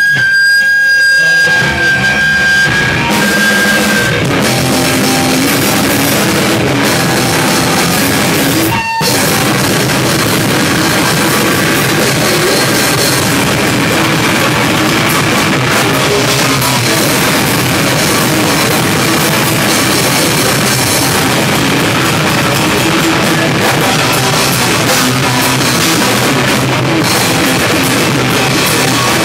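Live rock band playing loud on a drum kit and electric guitar in a small room. A high steady whine sounds over the first few seconds, and the band stops for a split second about nine seconds in.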